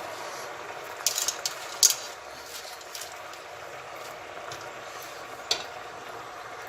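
Spinach frying in oil in a pot with a steady sizzle, and a spoon clinking against the pot a few times: about a second in, near two seconds and again past five seconds.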